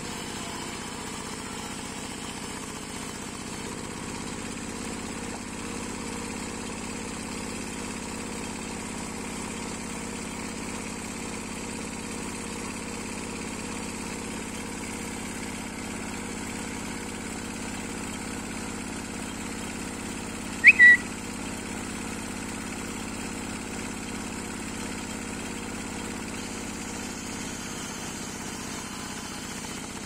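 Landmaster power tiller's single-cylinder diesel engine running steadily under load, belt-driving a circular sawmill blade through a log. About 21 seconds in, two short, loud, high whistle notes cut through, the first one rising.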